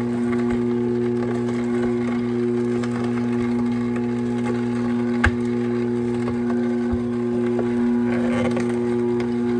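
Orfeld slow masticating juicer running with a steady motor hum, its auger crushing vegetable pieces with scattered crackling and snapping, and one sharp crack about five seconds in.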